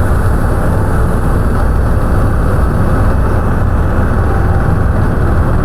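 Helicopter cabin noise: the engine and rotor give a loud, steady, deep rumble without a break.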